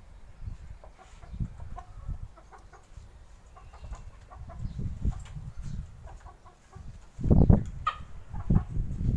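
Domestic chickens clucking in short, scattered calls over a low rumble, with a louder low thump about seven seconds in.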